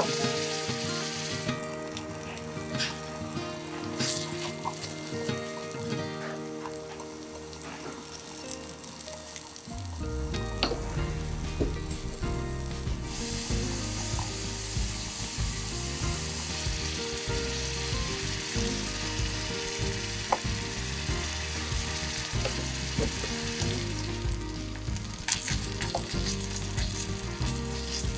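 Food sizzling in a miniature wok as butter, chopped vegetables, minced meat and macaroni fry, with the utensil clicking and scraping against the pan while it is stirred. The sizzle grows fuller and louder about a third of the way in, once the ingredients are in.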